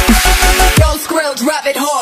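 Dubstep track with heavy sub-bass and a driving beat. About halfway through, the bass drops out, leaving a short break of bending, stuttering pitched sounds.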